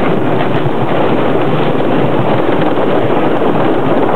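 Intamin wooden roller coaster train running along its wooden track, its wheels giving a steady noise, with wind on the microphone from the ride's speed.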